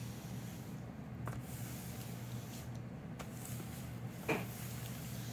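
Small dry iron, set to no steam, sliding over parchment paper laid on a book page: a faint papery swishing that comes and goes over a steady low hum, with a brief soft knock about four seconds in.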